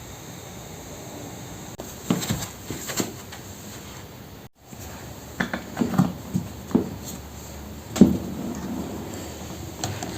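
Kitchen items being handled and set down: a series of separate light knocks, taps and clatters, busiest in the second half, with a moment of silence near the middle.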